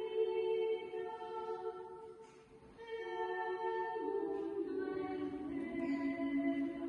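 Slow choral singing in long held notes, with a short lull about two and a half seconds in.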